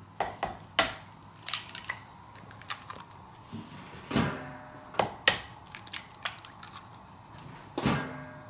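Eggs being cracked into a jug of cream: a series of sharp taps and shell cracks, with two louder, longer sounds about four seconds in and near the end.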